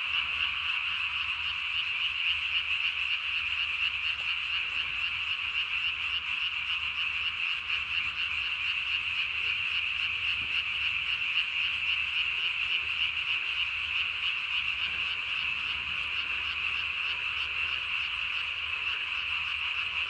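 A dense chorus of many frogs calling all at once without a break: males calling for mates in the spawning season.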